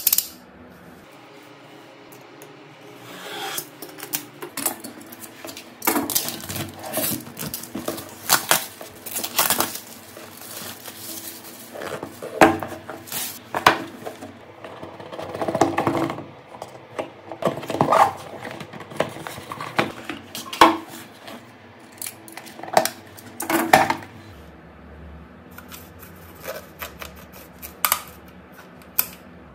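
Hands unboxing a phone: a utility knife cutting the packaging seal, then cardboard boxes sliding open and packaging being handled. The sounds are irregular scrapes, taps and rustles, with a sharp click right at the start.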